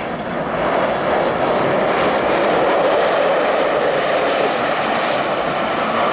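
Electric ice-racing car sliding sideways through a snowy corner: a steady rushing noise of tyres scrabbling on ice and spraying snow, building over the first second and then holding.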